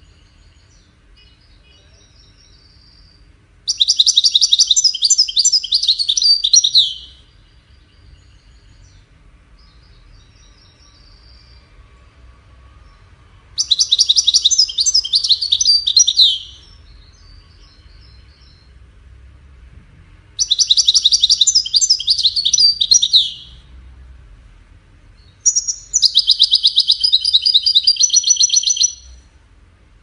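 European goldfinch singing: four loud phrases of rapid repeated high notes, each about three seconds long, with soft twittering between them.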